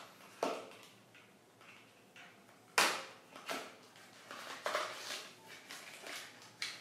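Small cardboard box being handled and opened, its end flap pulled and the inside slid out: a handful of short knocks and scuffs, the loudest nearly three seconds in.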